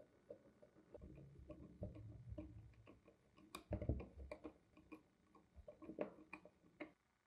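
Small irregular clicks, taps and scrapes of a steel screwdriver working against the brass terminals and black plastic motor housing of a Black & Decker BD 561 electric drill, loudest a little past halfway, stopping just before the end.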